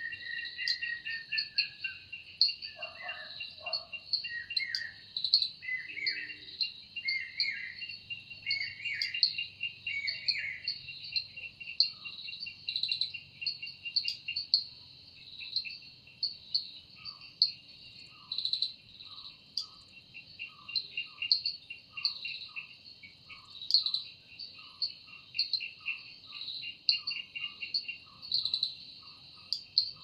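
Steady chorus of cicadas, a fast pulsing buzz in two high bands. A bird whistles several short rising phrases during the first ten seconds, and after that a short lower call repeats about once a second.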